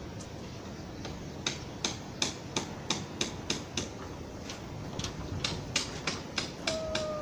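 A run of sharp clicks, about three a second, starts about a second in. Near the end a stray cat begins a long, slowly falling threat yowl at a rival cat.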